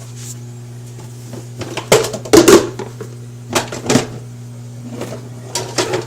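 Containers and items being handled inside a refrigerator: groups of knocks and rattles about two, four and six seconds in, over a steady low hum.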